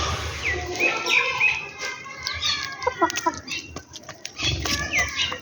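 A flock of sparrows chirping, many short overlapping chirps, with wings fluttering and light clicks among them.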